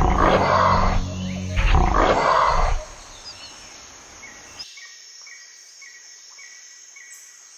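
Two loud dinosaur roars from film footage, the second starting about one and a half seconds in. After them only a quiet background bed remains.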